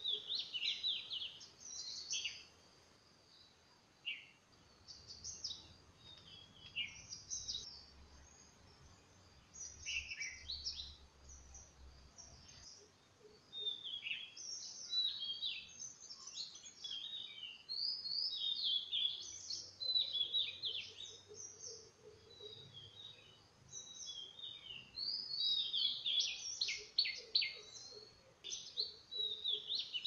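Yellow-billed babblers calling: many short, high chirping notes in quick clusters, sparser at first and busiest in the second half.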